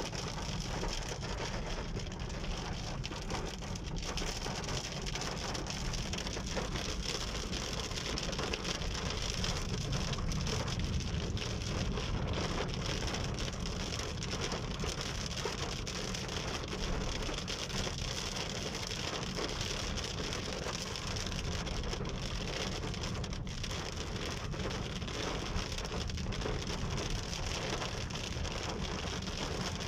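Heavy rain beating on a car's roof and windscreen, heard from inside the cabin as a steady, even noise.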